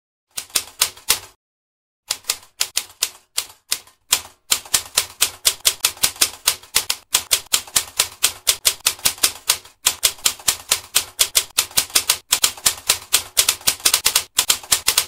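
Typewriter sound effect: rapid clacking key strikes, about five or six a second, in runs broken by short pauses.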